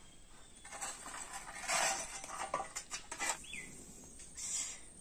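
Dry kindling in a clay stove rustling and crackling as a fire is lit, with a louder rush about two seconds in and a run of sharp crackles just before three seconds.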